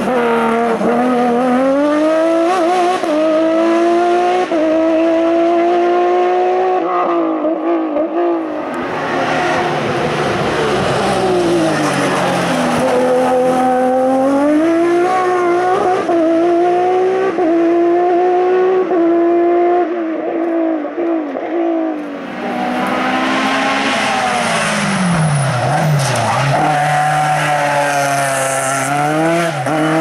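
Racing cars (open-cockpit sports prototypes, then a single-seater) accelerating hard uphill one after another. Each engine note climbs in pitch and drops back at every upshift. Near the end the pitch falls low and climbs again as the car slows for a bend and pulls away.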